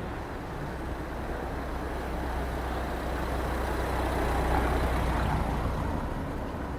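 A heavy vehicle's engine runs with a steady low hum as it drives past, growing louder to a peak about four and a half seconds in, then fading.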